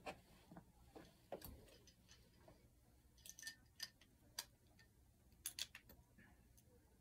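Near silence broken by faint, irregular clicks and taps, a dozen or so, some coming in quick clusters.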